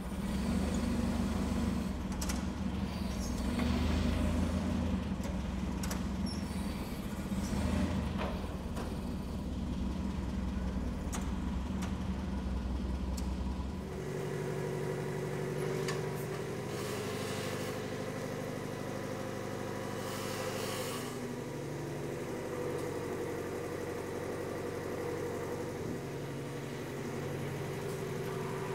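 A machine's engine running steadily, its note changing about halfway through to a steadier, higher-pitched hum.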